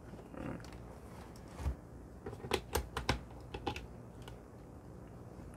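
Sharp plastic clicks and knocks from a white plug-in smart plug being handled and pushed into the test socket of a portable appliance tester. The clicks are irregular and bunched in the middle.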